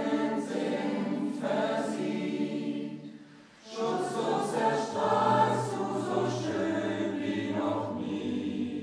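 Mixed choir singing a cappella in several voice parts: two sung phrases with a short breath about three and a half seconds in, the low voices coming in under the second phrase.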